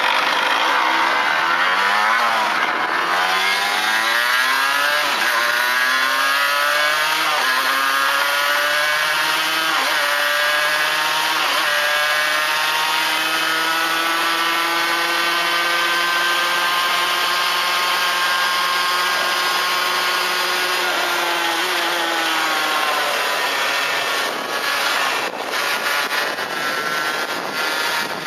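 Honda NS-1's 50cc two-stroke single-cylinder engine revving up through the gears. The pitch climbs and drops back with each shift over the first several seconds, then holds steady at speed and falls away about 22 seconds in as the throttle closes.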